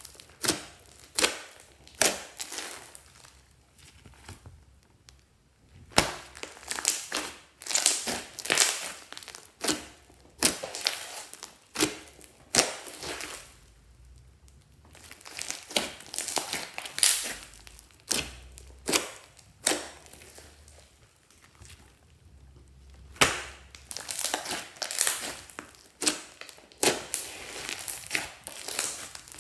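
Hands squeezing, kneading and stretching a large batch of slime full of small foam beads, making crackling, crunching clicks in quick bursts with a few short pauses.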